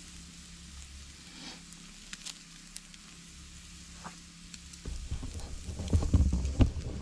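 Tomahawk steak sizzling on a charcoal grill grate: a steady hiss with scattered small crackles. From about five seconds in, low rumbling and a few loud bumps and knocks, the loudest sounds here.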